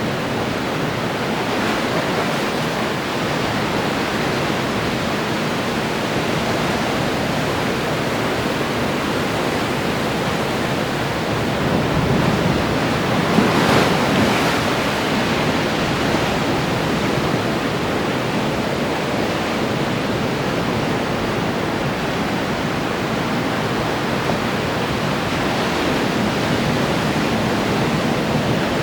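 Ocean surf breaking and washing in steadily, with one louder wave crashing about halfway through.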